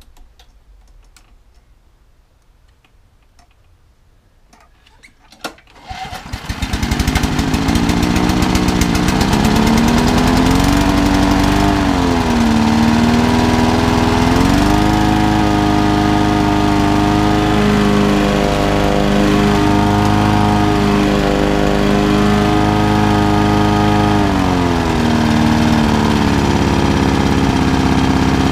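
Honda HR21 lawnmower's four-stroke petrol engine pull-started, firing straight up on one pull about six seconds in, after a few faint clicks. It then runs strongly, its speed rising and falling a few times before settling.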